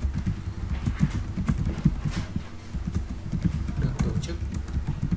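Typing on a computer keyboard: a quick, irregular run of key clicks and thumps.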